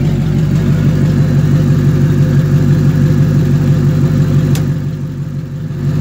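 Ford Mustang engine idling steadily with the hood open: the running donor car during a jump-start. A single sharp click about four and a half seconds in.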